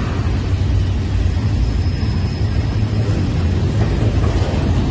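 Freight train's loaded flatcars rolling past: a steady low rumble of steel wheels on the rails.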